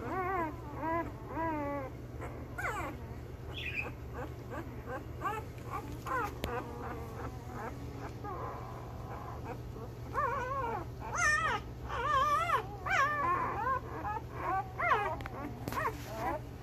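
One-week-old Belgian Malinois puppies whimpering and squeaking in a string of short, wavering cries, louder and higher-pitched about ten to thirteen seconds in. A steady low hum runs underneath.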